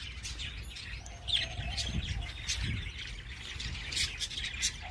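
Birds chirping: many short high chirps, with a quick high call and a held, lower call about a second in.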